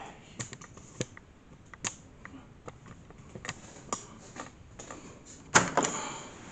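Scattered clicks and knocks from a phone camera being handled and set down. About five and a half seconds in there is a sudden loud crash that dies away over about a second.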